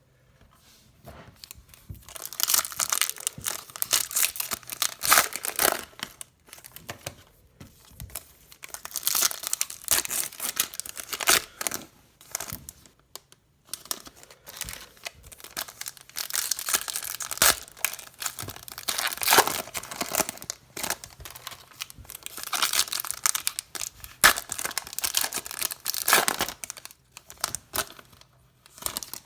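Foil wrappers of Bowman Chrome baseball card packs being torn open and crinkled by hand, in four bouts of ripping and rustling with short pauses between.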